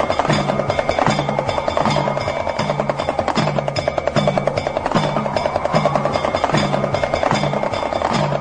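Damru, the small hourglass-shaped hand drum, rattled in a fast, even stream of clicking strokes. Under it a low tone repeats about every 0.8 s.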